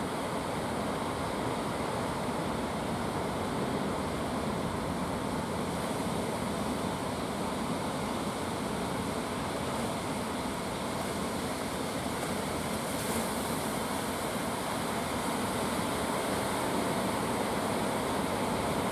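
Ocean surf breaking and washing onto the beach in a continuous, even wash.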